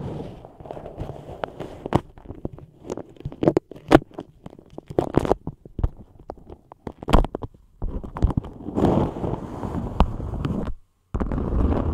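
Beeswax-coated cotton food wrap (Bee's Wrap) crinkling and crackling as long acrylic nails press, scratch and fold it: irregular small snaps and clicks, turning into a denser rubbing rustle about two thirds of the way through.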